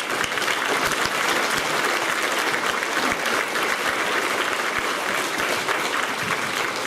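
Assembly audience of children and adults applauding, a steady round of many hands clapping.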